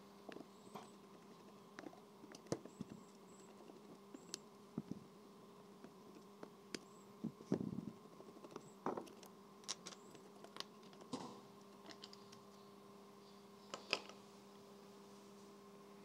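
Faint, scattered small metallic clicks and taps of a screwdriver working the screws of a wiper motor's gearbox cover, and the cover being lifted off. The clicks are a little louder about halfway through and again near the end, over a steady low hum.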